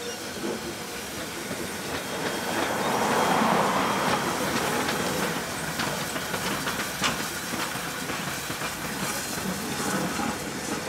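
New South Wales 32-class steam locomotive 3237 running past with a rush of steam exhaust and its wheels clicking over the rail joints. It is loudest about three to four seconds in.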